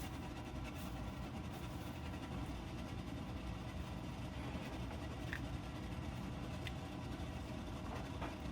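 A steady low mechanical hum, like a motor running, with a few faint light clicks.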